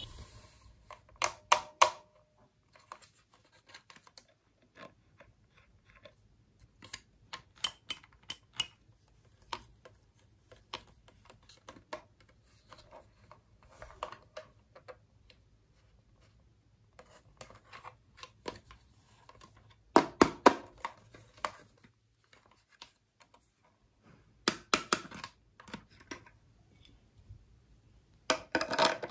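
Hard plastic toy sink being handled: scattered clicks, taps and knocks of light plastic, coming in short clusters every few seconds as it is picked up, set down and turned over to its battery compartment.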